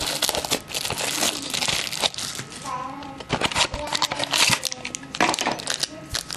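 Sealed trading-card pack being crinkled and torn open by hand: a dense, irregular crackling of the wrapper.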